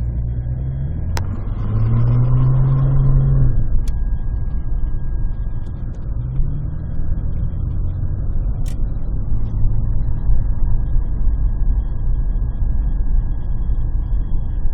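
A motor vehicle's engine running over a steady low rumble, rising in pitch as it speeds up about a second in and again about six and a half seconds in.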